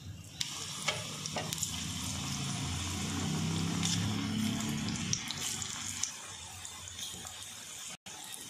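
Chicken pakoda batter deep-frying in hot oil in a kadai: a steady sizzling hiss that starts about half a second in, as the second batch goes into the oil, with a few light clicks in the first second and a half. The sizzle gets a little quieter about six seconds in.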